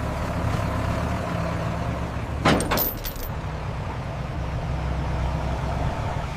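Truck engine running steadily, with a brief sharp burst of noise about two and a half seconds in.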